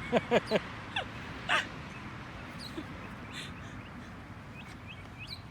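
Baby bird squawking: three quick falling-pitch calls right at the start, two more single calls within the next second, then a few faint short chirps.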